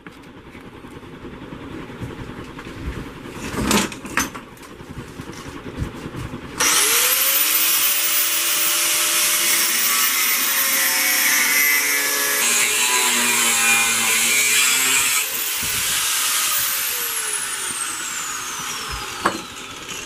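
Angle grinder grinding the weld seams of a welded steel box. It starts with a sharp rising whine about six seconds in and runs loud against the metal. Around sixteen seconds it is switched off and winds down with a long falling whine; a few knocks come before it starts.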